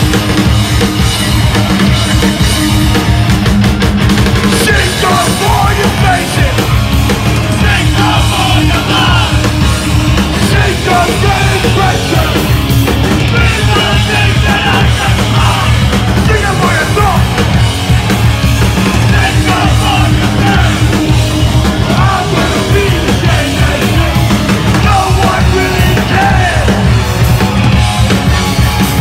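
Hardcore punk band playing live and loud: bass guitar, electric guitar and drum kit, with shouted vocals coming in about five seconds in and carrying on until near the end.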